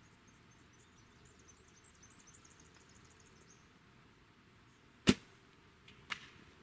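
A traditional bow shot: one sharp, loud crack of the string's release about five seconds in, followed a second later by a quieter knock and light crackling in the brush as the deer moves off.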